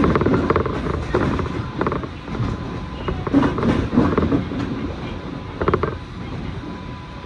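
Electric commuter train running, heard from inside the carriage: a steady rumble with irregular knocks, clicks and creaks from the wheels on the rails and the car body. A thin steady whine comes in near the end.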